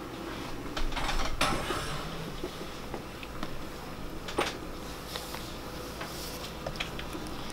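Rustling and light clicks as an infant car seat and its harness are handled with a newborn being settled in, with one sharper click about four and a half seconds in.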